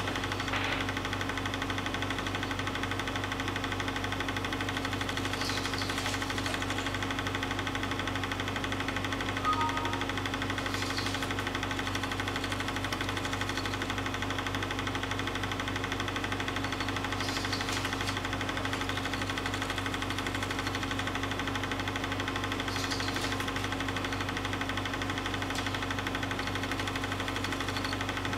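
Film projector running: a steady mechanical clatter and hum that stays the same throughout.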